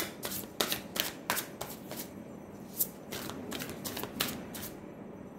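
A deck of tarot cards being shuffled by hand: a run of quick, irregular card snaps and slides, about three a second, stopping shortly before the end.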